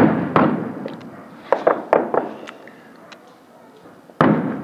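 Fireworks exploding: a loud bang that trails off, a second bang just after it, a quick run of sharp crackling pops about a second and a half in, and another loud bang near the end.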